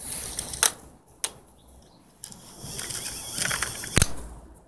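Rustling, scuffing noise from movement in snow, in two spells, the second longer. Sharp clicks come about half a second and a second in, and a louder one near the end.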